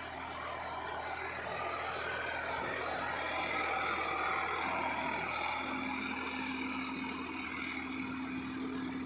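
Sonalika diesel tractor engine running steadily under load as it pulls a laser land leveller through loose soil, passing close by. A steady low hum grows stronger about halfway through.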